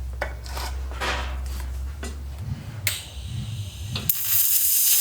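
Light metal clinks and rubbing as the workpieces are handled, then about four seconds in a steady hiss starts as the welding arc is struck. The weld fails to stick: the welder is set too low for the steel.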